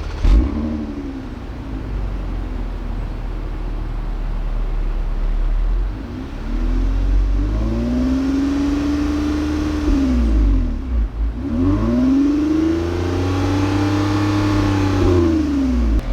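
2020 Toyota Avalon TRD's V6 engine through its cat-back dual exhaust, idling low, then revved up twice, the pitch rising, holding a couple of seconds and falling back each time.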